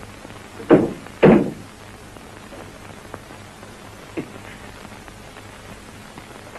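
Two loud thumps about half a second apart, then a faint knock about four seconds in, over the steady hiss of an old film soundtrack.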